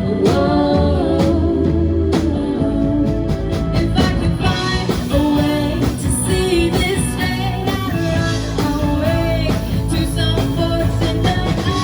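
Rock music with drums and a singing voice.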